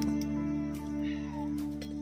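Background music: a soft instrumental with long held notes, with a few light clicks.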